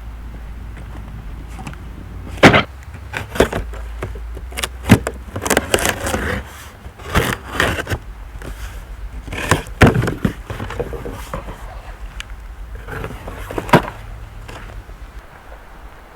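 A series of sharp, irregular knocks and clunks, with lighter clattering between them, over a low steady hum during the first six seconds or so.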